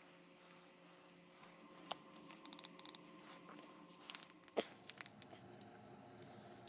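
Faint handling noises of small parts: scattered light clicks, a quick run of tiny ticks, then one sharper click, with a faint steady hum in the last two seconds.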